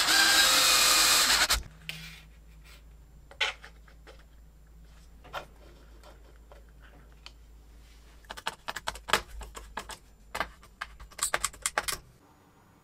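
Electric drill running and boring into an aluminium chassis plate, stopping about a second and a half in. After it come scattered light clicks and taps of small parts and a screwdriver being handled, thickest near the end.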